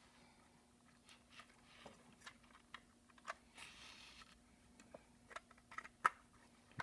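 Scattered small clicks and taps of plastic toy-submarine parts being handled and fitted back together, with a brief soft rustle past the middle and the sharpest click near the end. A faint steady hum runs underneath.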